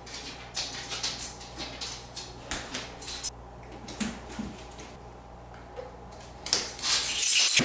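Hands fixing Velcro strips along a wooden window frame: scattered small clicks and rustles, then a louder scratchy rustle lasting about a second near the end.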